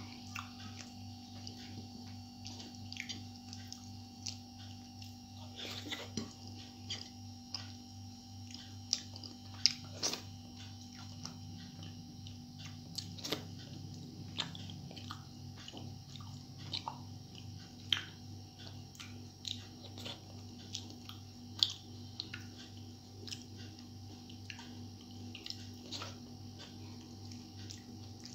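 Chewing and small irregular clicking mouth sounds of someone eating rice by hand, over a steady low hum.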